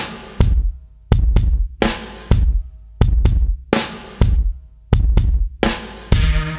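Background music: a drum-heavy track with a steady beat of heavy bass drum and snare hits. A sustained bass note comes in near the end.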